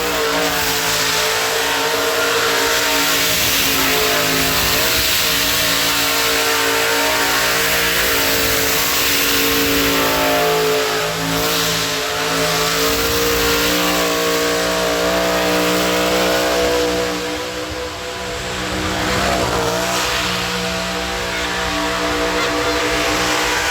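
Car engine held at high revs during a burnout, with the rear tyres spinning. The revs dip briefly about eighteen seconds in, then build again.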